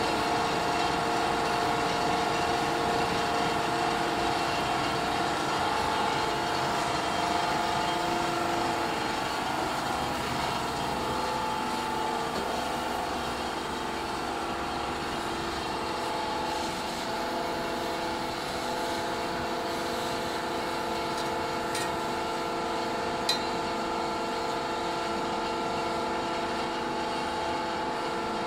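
Plastic recycling extruder (plastic gitti machine) running steadily, pushing out molten plastic; its drive gives a steady hum of several tones over a noisy rumble. A single sharp click about three-quarters of the way through.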